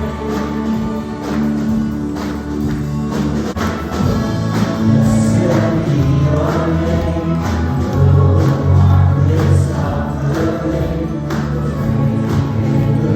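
Group singing of a gospel-style worship song with instrumental backing and a steady beat.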